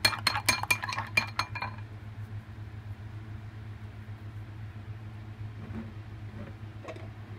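Metal utensil clinking rapidly against a dish, about six clinks a second, stopping about two seconds in. A steady low hum carries on underneath.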